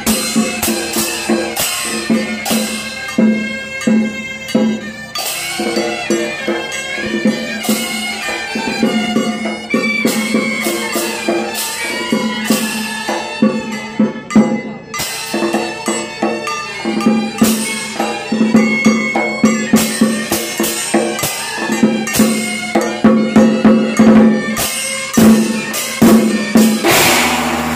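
Chinese gong-and-drum percussion ensemble playing: hand cymbals, large gongs and a barrel drum struck in a fast, dense rhythm over a steady droning tone, with a loud cymbal crash near the end.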